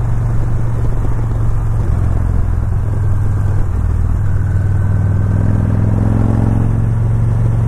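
Touring motorcycle engine running while riding at a steady cruise, a constant low hum.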